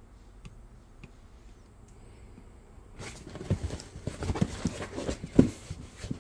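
Quiet at first. From about three seconds in, a cardboard shipping box is turned over in the hands: a run of rubbing and knocking sounds, with one louder thump near the end.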